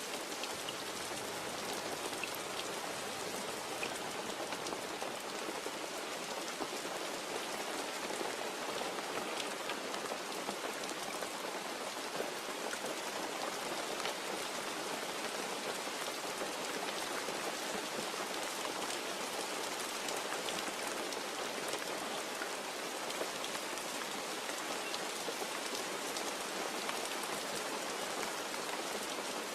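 Steady rain falling, an even hiss of countless drops with scattered sharper drop ticks, holding at one level throughout.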